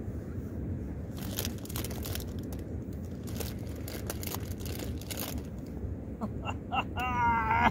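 Foil crisp packet crinkling in short, scattered rustles as hoop-shaped crisps are taken out and fitted onto fingers.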